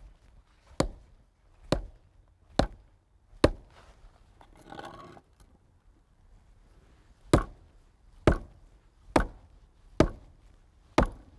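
Mallet striking a thermal bluestone paver: nine sharp taps a little under a second apart, four, then a pause, then five more, knocking the high side of the stone down into its compacted stone-dust bed to bring it level.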